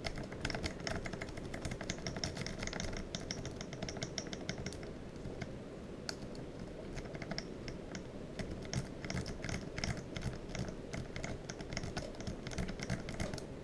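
Rapid, irregular clicking of a lock pick working the pins of an American Lock 1105 padlock while it is being picked open, thinning out for a few seconds about midway.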